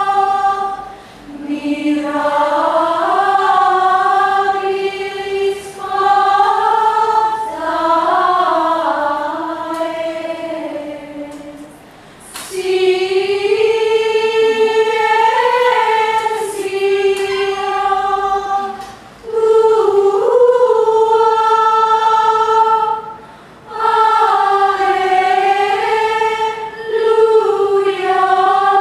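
Women's choir singing Gregorian chant in unison, a cappella, in smooth phrases broken by short pauses for breath.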